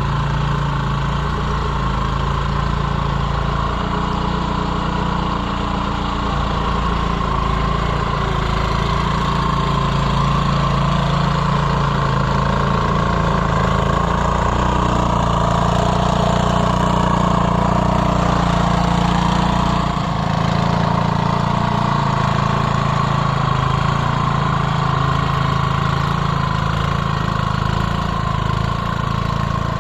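A 1979 Montgomery Ward snowblower's 3.5 hp Briggs & Stratton single-cylinder engine running steadily. About two-thirds of the way through, its deepest rumble drops away while the engine keeps running.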